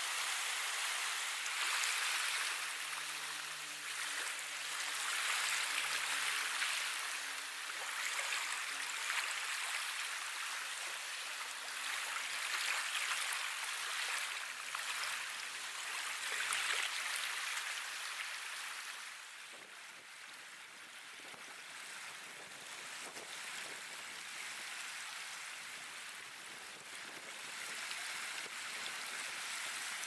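Small waves of shallow seawater lapping and washing over a sandy beach, a soft hiss that swells and eases with each wash. A faint low hum lies underneath for roughly the first two thirds, and the water gets quieter a little past the middle.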